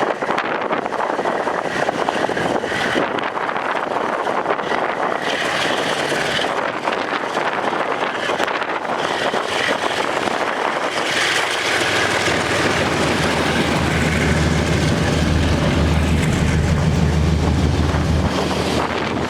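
Gusty wind buffeting the microphone, with a diesel locomotive's deep engine drone coming in about two-thirds of the way through as the train pulls away, then dropping back shortly before the end.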